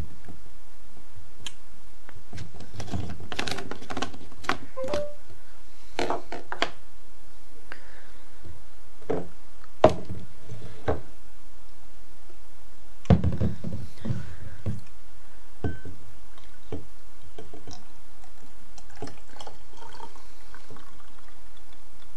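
Clicks and knocks of a plastic portable blender jar being handled and lifted off its motor base, with two louder knocks about ten and thirteen seconds in. Juice pours into a glass near the end.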